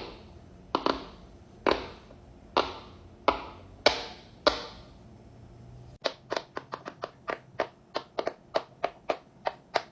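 Silicone bubbles of a jumbo pop-it fidget toy being pressed, each giving a sharp pop. The first few pops come slowly, each trailing off, and about six seconds in they turn into a quicker run of roughly three pops a second.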